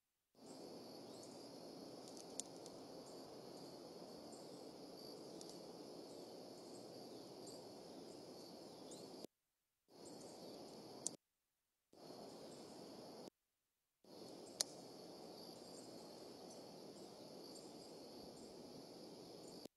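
Faint outdoor nest-camera ambience: a steady low hiss with a thin, high insect chorus over it, broken by three single sharp clicks. The sound cuts out to dead silence three times.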